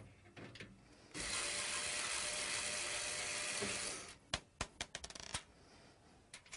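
A power screwdriver runs steadily for about three seconds, backing a screw out of the computer case, then several sharp metallic clicks follow in quick succession.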